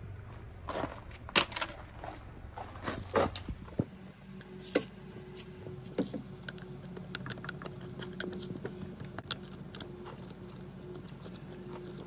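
Sharp metallic clinks and knocks from metal parts and hand tools being handled, several in the first few seconds and a few more spaced later. From about four seconds in a steady low hum runs underneath.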